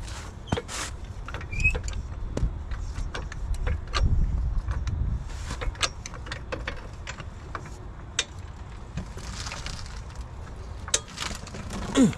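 A hydraulic floor jack being pumped up under a semi tractor, with irregular metallic clicks and knocks from the handle and jack, and a low rumble about four seconds in.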